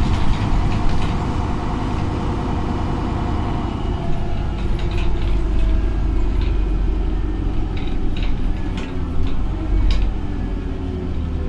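Inside a MAN NG articulated diesel bus on the move: steady engine and road noise, with scattered rattles and clicks from the body and fittings.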